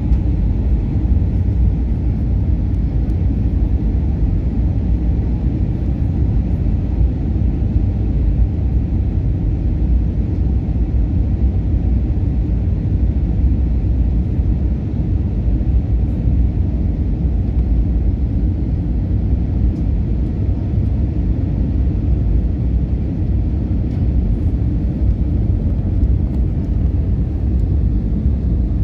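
Inside the cabin of an Airbus A321 on its descent to land: the steady low rumble of the engines and the airflow past the fuselage, even throughout.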